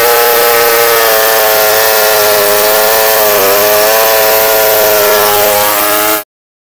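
Two-stroke gasoline chainsaw running at full throttle while ripping a log lengthwise into slabs. Its pitch dips briefly about halfway through, and the sound cuts off suddenly near the end.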